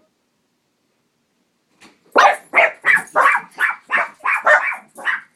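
Puppy barking, a quick run of loud, high-pitched yaps about three a second, starting about two seconds in.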